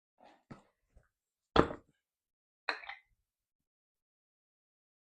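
A few separate knocks and clunks of hard parts being handled, the loudest about a second and a half in and another about a second later.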